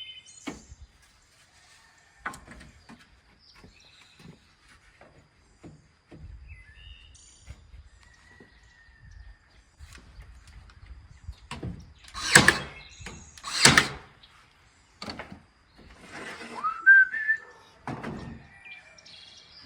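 Battery-powered nail gun firing twice, a little over a second apart, among light knocks of boards being handled. A bird chirps near the end.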